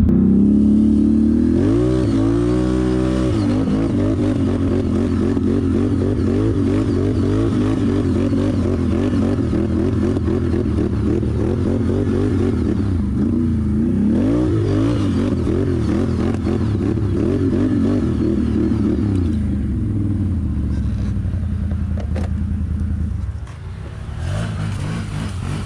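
ATV engine working hard under load on a hill climb, the revs constantly rising and falling, with sharp rev swings about 2 seconds in and again around 14 seconds. The engine note drops away near the end.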